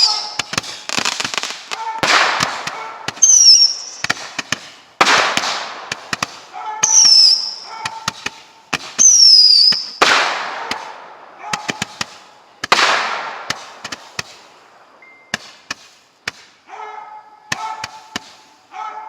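Consumer aerial fireworks firing a rapid series of loud bangs, some shots carrying high whistles that fall in pitch. Toward the end the bangs give way to smaller scattered pops.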